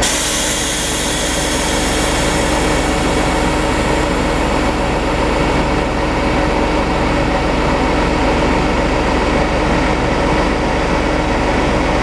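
Class D445 diesel-electric locomotive idling at a standstill, a steady low engine hum with a constant tone. A high hiss at the start fades away over the first few seconds.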